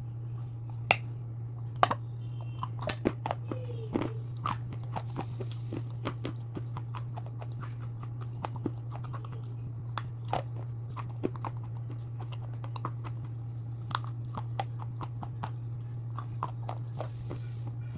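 Close-miked biting and chewing of brittle pieces: irregular sharp crunches, densest in the first four seconds and sparser after, over a steady low electrical hum.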